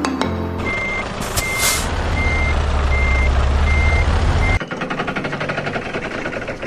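Truck reversing alarm beeping at an even pace, about six beeps, over a low diesel engine sound that grows louder. Both cut off suddenly about four and a half seconds in, giving way to a fast rattling clatter.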